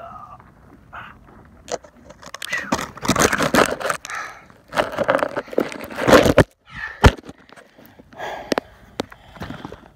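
A hiker's movement noise on a rocky path: irregular scraping, crackling rustles, two longer spells of it, with several sharp clicks.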